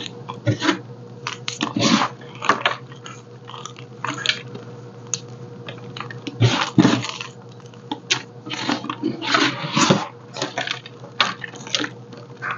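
Blue chalk crushed and squeezed by hand, the crumbled chunks and powder crunching and crumbling in irregular bursts.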